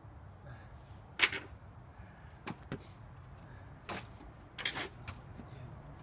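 Sharp metallic clicks and scrapes of a small hand tool working at a wire-mesh tube bird feeder, about half a dozen in irregular succession, the loudest a little over a second in.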